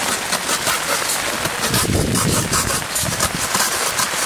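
A hand saw cutting through a plywood board in quick back-and-forth strokes: a repeated rasp, about three strokes a second.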